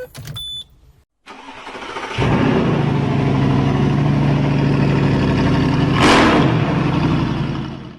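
A motor or engine running steadily for several seconds, with a brief louder surge about six seconds in.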